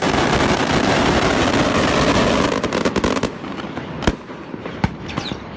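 Fireworks going off: a dense, continuous crackle for about three seconds that stops abruptly, followed by a few separate sharp bangs and a short falling whistle near the end.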